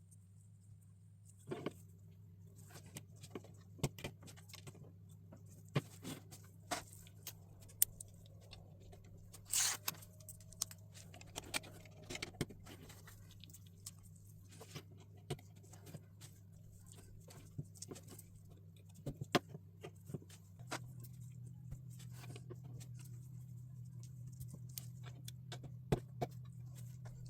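Small plastic LEGO pieces being handled and snapped together: scattered light clicks and taps, with a brief rustle about ten seconds in, over a steady low hum.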